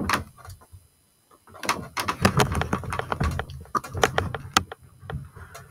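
Knocks and clicks from the laptop being handled close to its built-in microphone: a sharp knock at the very start, then a dense run of clicks and knocks with dull thuds from about a second and a half in to near the end.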